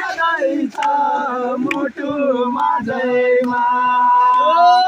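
Voices singing in a chant-like style, holding long notes that slide up and down in pitch, with a few sharp clicks.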